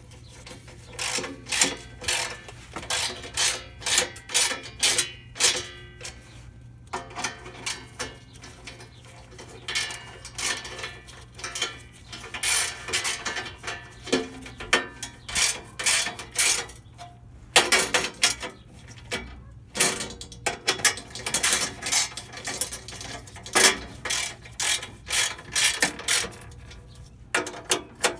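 Metal hand tools clicking and clanking in irregular clusters of sharp clicks.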